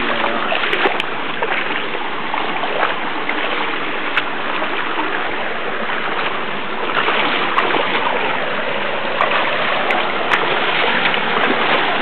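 Rushing water, a steady dense hiss that swells slightly about seven seconds in, with a few faint clicks.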